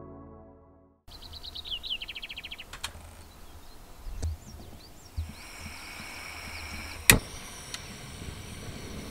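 Soft ambient music fades out, then outdoor ambience: a rapid run of short falling high chirps, scattered high calls and a steady high-pitched note, broken by a sharp click about seven seconds in.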